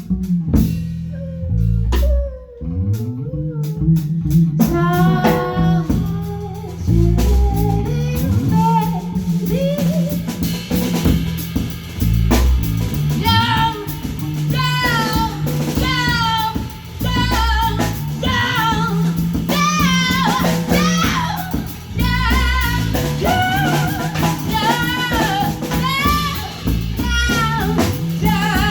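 Live rock band playing a song: drum kit and bass guitar keep a steady beat, and a lead vocal comes in about five seconds in.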